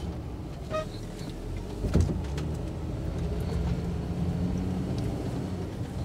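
Camper van running on the road, a steady low rumble. A short beep sounds just under a second in, and a sharp thump about two seconds in.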